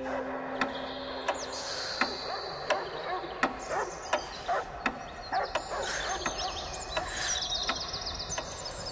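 A steady series of sharp ticks, about three every two seconds, with high, quick chirping running over them from about a second in.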